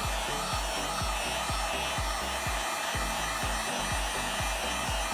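Heat gun blowing steadily, warming the phone's edges to soften the adhesive, over background music with a steady bass beat.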